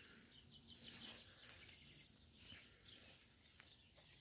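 Near silence: faint outdoor ambience with a few faint, high bird chirps, the clearest about a second in.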